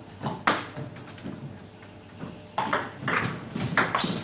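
Table tennis rally: the ball clicking off the bats and bouncing on the table, one sharp click about half a second in, then a quick run of clicks from about two and a half seconds in.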